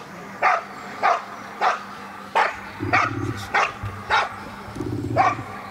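A shepherd dog barking steadily at a decoy in a protection exercise, about eight sharp barks at a rate of roughly two a second, as the dog guards the helper and holds him in place.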